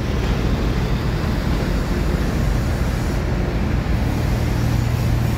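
Steady low rumble of engines and road traffic.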